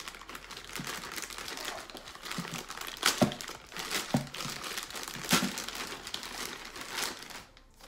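Thin plastic poly bag crinkling and rustling as it is handled and pulled open, with several sharper crackles along the way.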